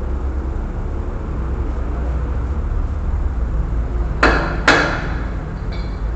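Two sharp knocks about half a second apart, over a steady low rumble.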